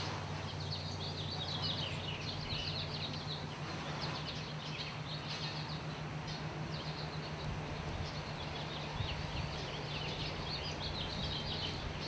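Small birds chirping and twittering in quick high notes, over a steady low hum.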